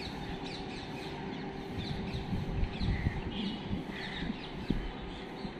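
Birds chirping again and again, with crows cawing now and then, over a steady low background rumble.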